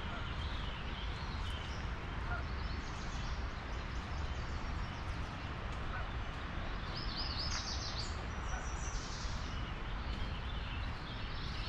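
Songbirds chirping and singing, with a quick run of high song notes about seven to nine seconds in, over a steady low rumble.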